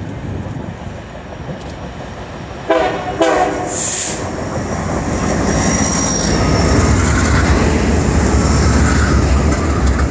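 Diesel locomotive's horn sounding two short blasts about three seconds in, followed by a brief hiss. The locomotive then passes directly beneath, its deep engine rumble and wheel noise growing loud and staying loud as the cars roll under.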